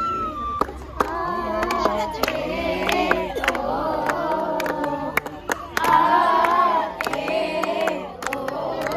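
A bamboo flute holds a clear note that stops about half a second in. Then a group of schoolchildren sing together, with scattered sharp clicks.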